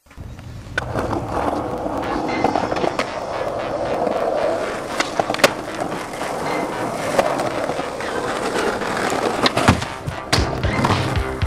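Skateboard wheels rolling on rough asphalt and concrete, with several sharp clacks of the board popping and landing, loudest about five seconds in and again toward the end. Music comes in near the end.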